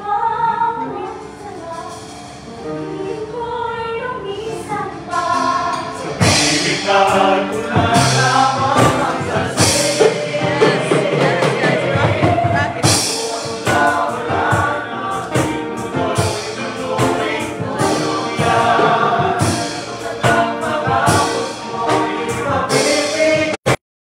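Restaurant waiters and cooks singing a song together, several voices at once.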